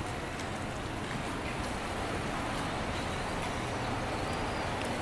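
Steady background noise: an even hiss with no distinct sounds standing out.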